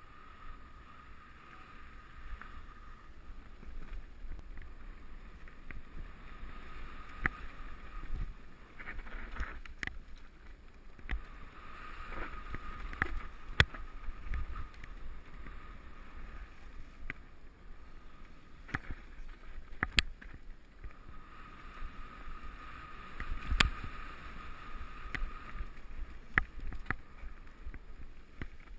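Mountain bike ridden along a dirt forest trail, heard from a helmet-mounted camera: a steady low rumble of tyres and wind on the microphone, with frequent sharp knocks and rattles as the bike hits bumps and roots. A high buzz comes and goes in stretches, the rear hub's freewheel while coasting.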